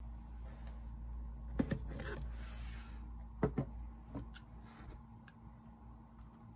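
The plastic outer cover of a small aroma diffuser being handled and lifted off: a pair of light plastic clicks, a brief scraping slide, then two more clicks about halfway through. A steady low hum runs underneath.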